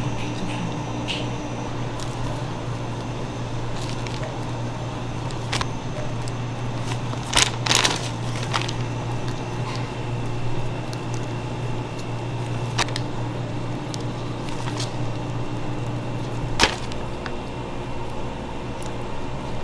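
Steady hum of bakery kitchen machinery with a few sharp clicks and knocks from eclair shells and piping bags being handled on a wire cooling rack. The loudest knocks come about a third of the way in, and the low hum drops away after a sharp click near the end.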